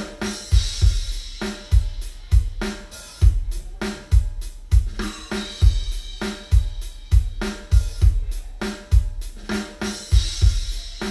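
Drum-heavy music played through a Yamaha NS-SW700 subwoofer as a bass test, with deep kick-drum hits roughly once a second and cymbals and hi-hat above them.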